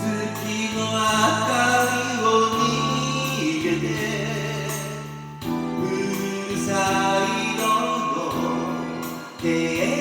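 Karaoke singing of a 1980s Japanese city-pop song in the original key: a live voice sings over the karaoke backing track, with a short break between phrases about halfway through.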